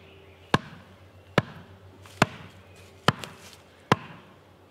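Hammer blows on top of a wooden stake, driving it into the ground: five sharp, evenly spaced strikes a little under a second apart.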